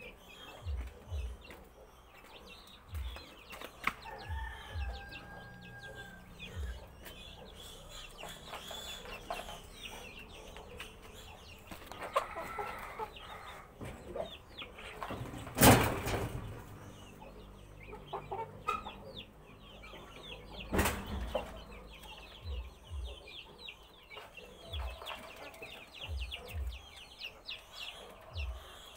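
Chickens clucking, with faint chirping, scattered low thuds, and two sharp knocks, the louder one about halfway through and another about five seconds later.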